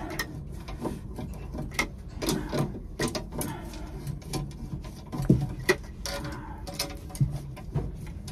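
Hand tubing cutter being turned around a copper water pipe, with irregular light clicks and scraping as the cutter wheel works into the pipe.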